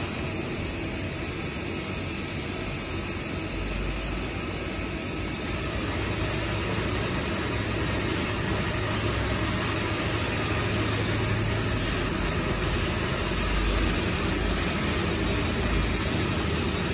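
CNC horizontal boring mill running with its spindle boring into a workpiece: a steady machine drone. A low hum grows louder about four seconds in.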